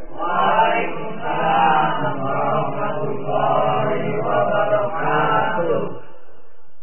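A congregation of many voices chanting together in unison, typical of an audience returning a preacher's closing salam with 'wa'alaikumussalam warahmatullahi wabarakatuh'. The voices thin out near the end.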